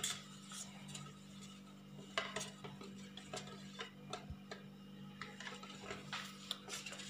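A white plastic spoon stirring a liquid mixture in a stainless steel bowl, making irregular light clicks and scrapes against the bowl. A steady low hum runs underneath.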